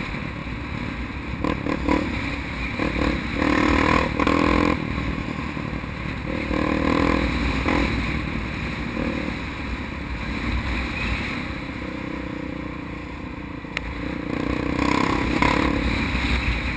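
Honda XR 250 Tornado trail bike's single-cylinder four-stroke engine running while being ridden, its pitch rising and falling several times as it speeds up and eases off, over a steady low rumble of wind and road noise on the microphone.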